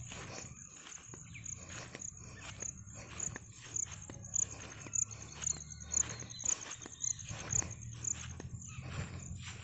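High-pitched insect chirping, a steady trill with louder pulses about twice a second, over footsteps through grass.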